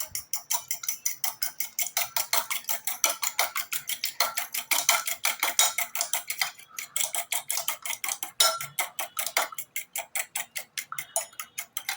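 Three eggs being beaten by hand in a bowl: the utensil clicks against the bowl in a fast, even rhythm of about five strokes a second, with a couple of short breaks.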